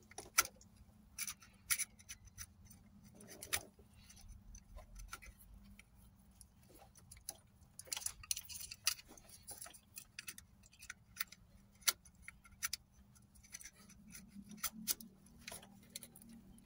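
Irregular small clicks and taps of a plastic wiring connector, test-lead probes and jumper wires being handled and fitted at a car's fan relay, over a faint steady low hum.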